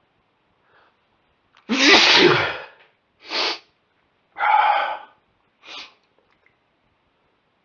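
A man sneezing in a fit of hay-fever allergy sneezes: one loud, long sneeze about two seconds in, followed by three shorter, weaker sneezes or breaths.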